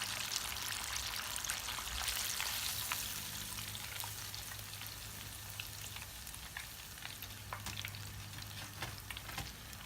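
Breaded chicken tenders deep-frying in hot oil: a steady sizzle full of small pops and crackles, a little louder a few seconds in, then easing, over a low steady hum.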